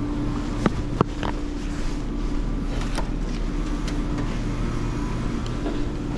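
Steady city-street vehicle noise: a low rumble with a constant hum, and a few light clicks early and again about three seconds in.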